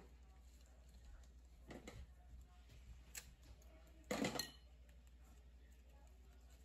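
Fresh green corn leaves rustling and crinkling as they are folded around a ball of masa to wrap a corunda, quiet, with a short louder rustle about four seconds in. A faint low hum runs underneath.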